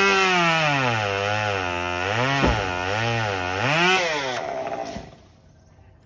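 Chainsaw cutting a branch, its pitch sagging and wavering as the chain bites into the wood. It rises briefly near four seconds in, then winds down and stops about five seconds in.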